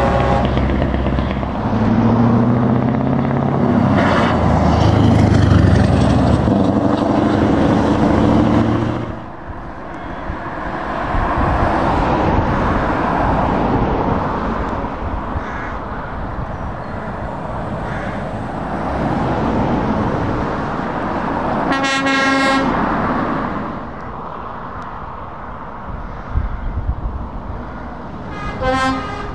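Heavy diesel trucks passing on a road: one truck's engine is loud for the first nine seconds, its pitch stepping as it goes, then tyre and engine noise of more trucks going by. A truck horn sounds a long blast about 22 seconds in and a short toot near the end.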